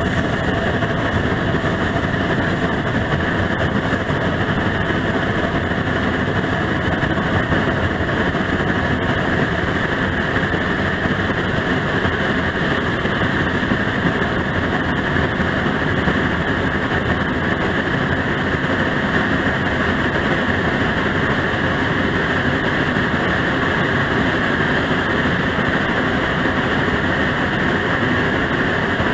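Steam-hauled train running along the line, heard from a car just behind the locomotive: a steady, dense running noise of the locomotive and its wheels on the rails, with no distinct beat.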